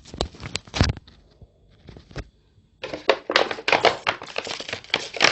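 Plastic bottle being handled and pressed flat: a few sharp taps at first, then, from about halfway through, a dense run of crackling plastic.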